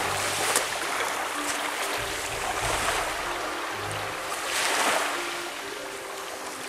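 Sea waves washing on a shore, swelling to their loudest about four and a half seconds in, with quiet background music.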